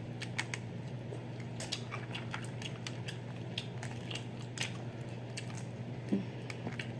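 Close-up eating sounds of boiled shrimp and crawfish: small wet mouth smacks and clicks, scattered irregularly, over a steady low hum.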